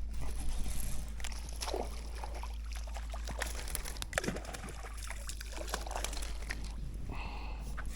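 Water sloshing and trickling, with scattered small clicks and knocks over a steady low hum.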